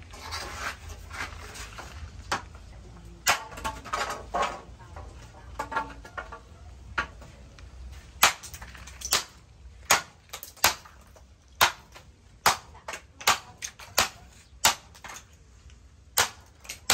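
A billhook forged from leaf-spring steel chopping through green bamboo stalks on a wooden block: sharp single chops, a few spaced out at first, then a steady run of a little over one a second from about eight seconds in.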